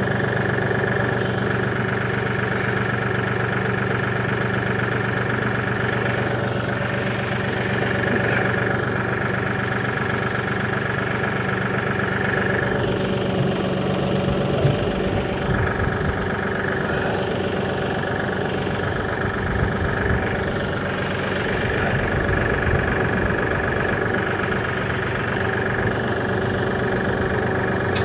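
Kioti DK6010 SE compact tractor's diesel engine running steadily, warmed up, as the tractor backs slowly down the trailer ramps on its hydrostatic drive. Low rumbling and clunks join in about halfway through.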